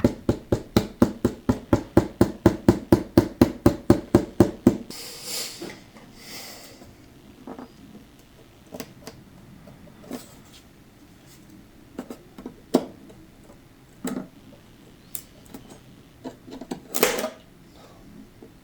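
Fast, even knocking, about six knocks a second, on a guitar's wooden body while a poorly glued crack in its top is worked apart; it stops about five seconds in. Then come brief scrapes and scattered light clicks, with a louder scrape or crack near the end.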